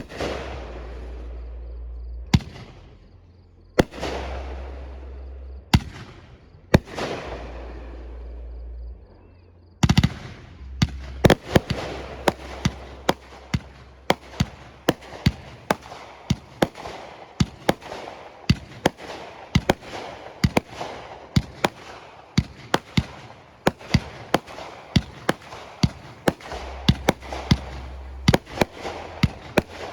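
Fireworks display: for the first ten seconds, single loud bursts a second or two apart, each bang trailing off in a long crackle and rumble. About ten seconds in, a rapid barrage of sharp bangs starts, two or three a second, and keeps going.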